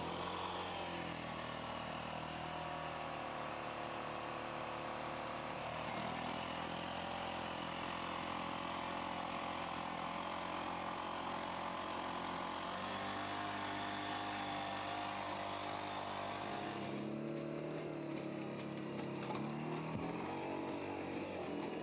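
Boston Dynamics LS3 four-legged robot's petrol engine and hydraulic power unit running with a continuous chainsaw-like drone. Its pitch shifts in places, and the tone changes about three-quarters of the way through as the robot steps over rocks.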